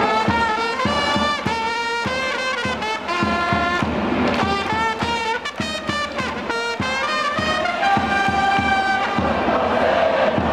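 Japanese baseball cheering-section trumpets playing a player's fight song, a melody of held brass notes over a steady beat.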